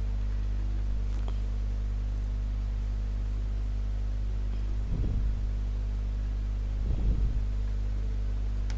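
Steady low electrical hum, with a few dull low bumps about five and seven seconds in.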